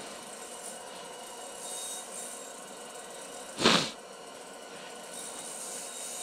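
Steady hiss of a portable propane heater burning inside an ice-fishing tent, broken by one short, loud noise about three and a half seconds in.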